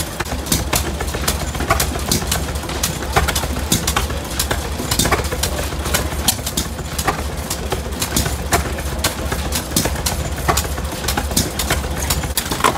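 Several antique hit-and-miss stationary engines running together: a steady low hum of running engines, crossed by many sharp clicks at an uneven pace.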